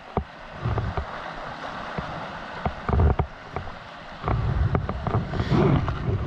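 Wind buffeting the microphone over surf washing against the rocks, with a few sharp clicks. The wind rumble gets much louder about four seconds in.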